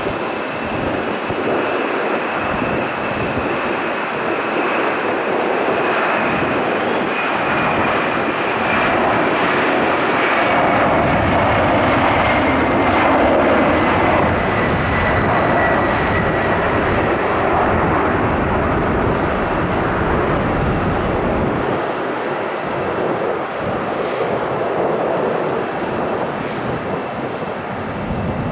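Boeing 767-300ER's twin turbofan engines at takeoff power through the takeoff roll, rotation and climb-out: a steady, loud jet noise that swells to its loudest about halfway through, with a high fan whine that slowly falls in pitch as the airliner passes and then fades.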